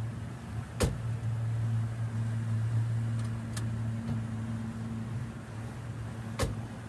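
Small boat's motor running steadily, with wind and water noise, and two short sharp knocks, one about a second in and one near the end.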